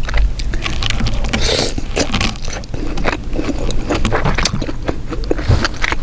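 Close-miked eating sounds: a stream of wet chewing, biting and lip-smacking clicks from seafood in sauce being eaten.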